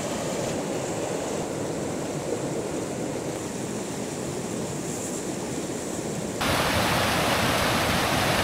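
Steady rushing water. About six seconds in it jumps louder and brighter as a rocky mountain stream rushing over stones.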